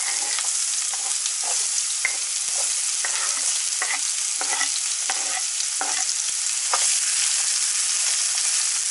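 Diced onion sizzling steadily in hot oil in a frying pan, with repeated short scrapes and taps as the onion is pushed in off a wooden board and stirred with a spatula.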